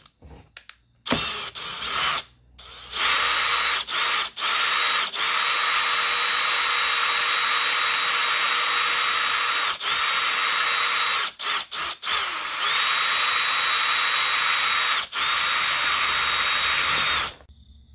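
Power drill drilling out rivets, with a steady high whine. It runs in short spurts at first, then in long runs with brief stops, and cuts off near the end.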